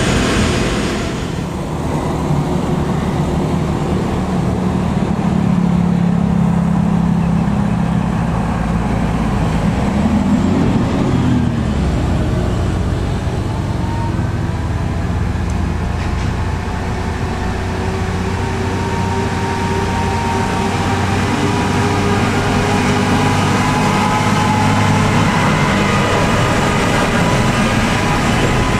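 Heavy diesel trucks climbing a steep grade, engines working hard under load. About ten seconds in, one engine's pitch rises and then falls.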